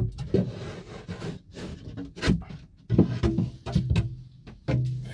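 A loose wooden shelf being pulled out of a wooden cupboard: a string of irregular knocks and scrapes of wood on wood, the loudest right at the start and about two seconds in.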